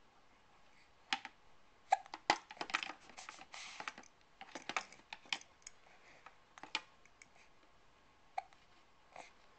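A baby hiccuping several times at irregular intervals, short sharp hics about a second and several seconds apart. A flurry of small clicks and rattles fills the middle stretch.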